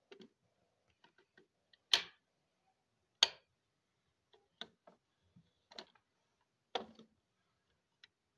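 Sharp clicks of a die-cast metal Rolls-Royce toy car's hinged doors and trunk lid being opened and snapped shut by hand, about seven separate clicks, the loudest about three seconds in.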